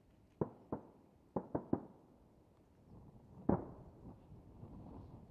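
Aerial firework shells bursting far off: a string of dull booms, five within the first two seconds and the loudest about three and a half seconds in, each trailing a short rumble.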